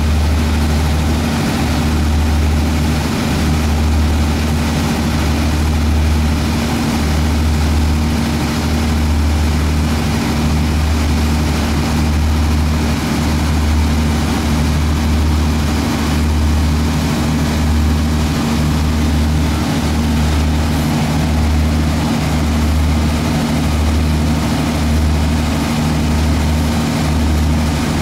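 Boat engine running steadily, a low drone with a slow throb that rises and falls every second or two.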